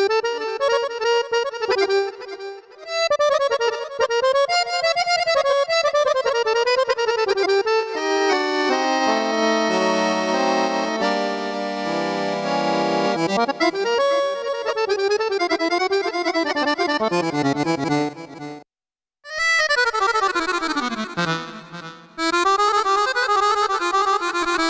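Korg Pa-series arranger keyboard playing an accordion sound: fast, ornamented melodic runs, with a stretch of full held chords about a third of the way in. The playing breaks off for a moment about three-quarters through, then resumes with quick falling runs.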